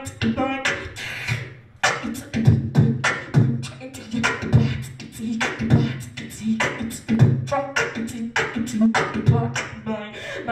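A woman beatboxing into a handheld microphone: a steady, fast beat of mouth-made kick drums and snare-like clicks, with a few short pitched vocal sounds here and there.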